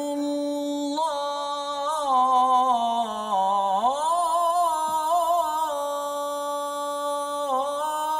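A man reciting the Quran in a slow, melodic chanted style, drawing out one long ornamented note. Its pitch sinks about three seconds in and rises back, then holds.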